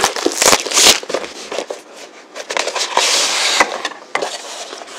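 Plastic shrink wrap being torn and crinkled off a cardboard box, in quick sharp crackles and rustles. About three seconds in comes a longer rustling swish of packaging being pulled and slid.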